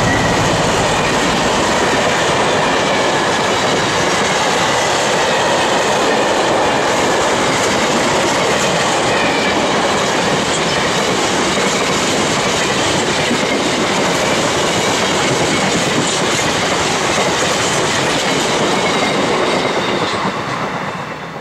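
Freight train of bogie tank wagons rolling past, wheels clattering rhythmically over the rail joints, with a faint wheel squeal at first. The noise dies away near the end as the last wagon clears.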